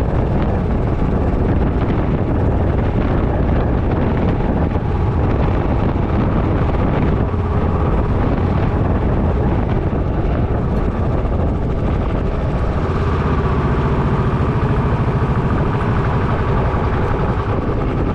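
Motorcycle riding along at road speed: the engine hums steadily under a constant rush of air noise. About two-thirds of the way in, a steady low engine tone stands out more clearly for a few seconds.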